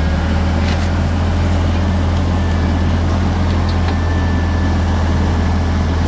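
Engine of a propane-fuelled Clark forklift running at a steady speed: a low, even hum that holds the same pitch throughout.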